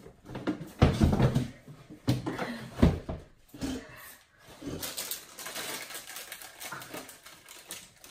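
Short bursts of wordless, muffled vocal sounds from a man with a banana pushed into his mouth, loudest about one and two and a half seconds in.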